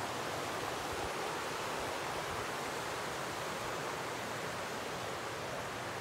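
Shallow rocky river rushing steadily over stones and small riffles, an even unbroken rush of water.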